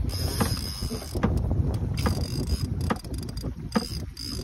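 Wind rumbling on the microphone aboard a fishing boat, with short knocks about once a second, as choppy water slaps the hull.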